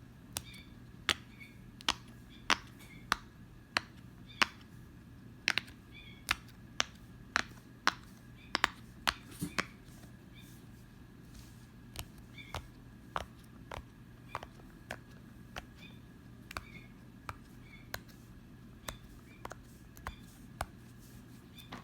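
A fidget toy being clicked over and over by hand: sharp clicks about one to two a second, louder and quicker in the first half, with a faint low hum underneath.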